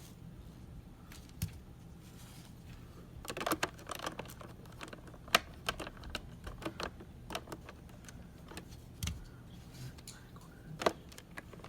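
Hard plastic parts of a Shark Rotator XL vacuum being handled and fitted back together: scattered clicks and knocks, with a quick cluster of them a few seconds in.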